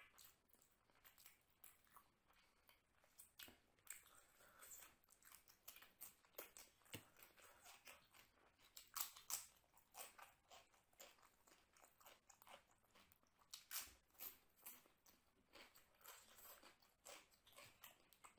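A person chewing a mouthful of chicken biryani close to the microphone: a quiet run of short, sharp mouth clicks, with louder ones about nine and fourteen seconds in.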